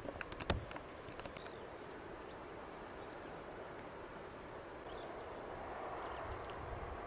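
Quiet outdoor night ambience: a faint steady hiss, with a few sharp clicks in the first second and a couple of faint short chirps later on. The level rises a little near the end.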